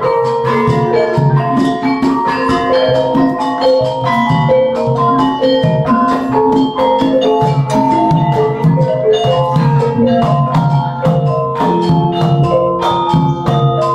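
Javanese gamelan ensemble playing: a dense, steady stream of bronze metallophone and kettle-gong notes ringing over kendang drum strokes.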